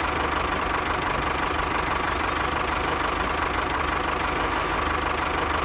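Tractor engine running steadily at low speed, an even low rumble with a faint steady whine.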